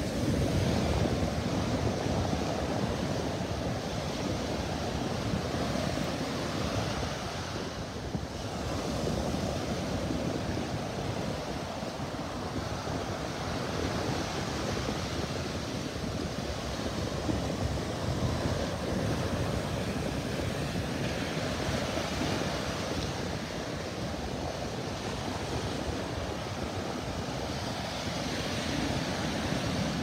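Atlantic Ocean surf breaking and washing up the beach: a continuous rushing that swells and eases as each wave comes in, with a brief lull about eight seconds in.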